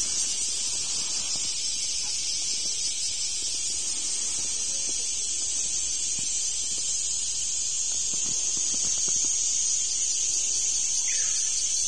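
Cicadas buzzing in a steady, high-pitched chorus.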